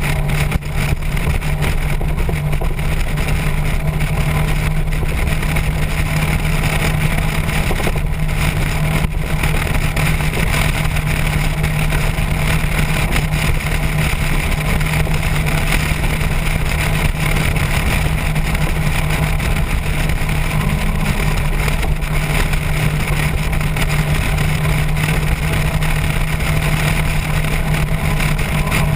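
Motorcycle engine running at a steady cruising speed, holding one even pitch, with wind and road noise over it.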